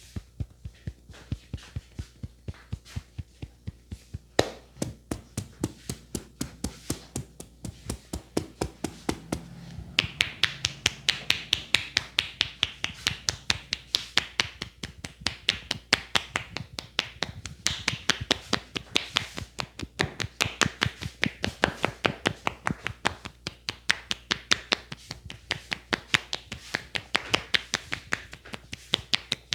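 Rhythmic tapping of hands on the head during a percussive head massage, about three or four quick strikes a second. The strikes get louder about ten seconds in.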